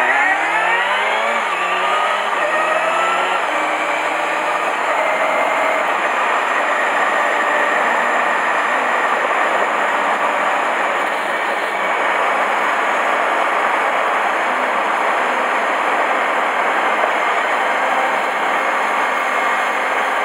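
Honda Hornet 250 motorcycle engine revving up as the bike accelerates, its note rising over the first couple of seconds and stepping through a few changes. It then settles into steady cruising, with rushing wind and road noise covering much of the engine.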